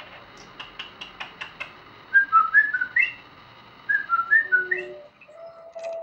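A few sharp clicks, then a budgerigar whistling two short phrases of clear notes that skip up and down in pitch, copying a light-vented bulbul's song.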